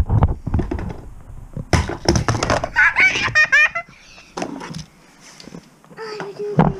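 Die-cast Hot Wheels Monster Jam toy trucks knocking and clattering on a wooden floor and a plastic playset, a string of short knocks in the first two seconds or so. A child's short high squeal about three seconds in.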